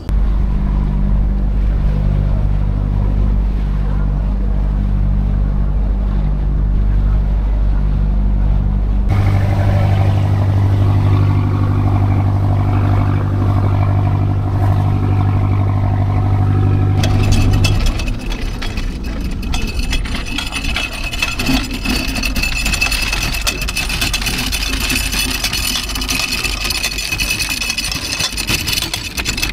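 Boat engine running with a steady low drone that changes tone about a third of the way in. A little past halfway the drone gives way to a broad rushing hiss.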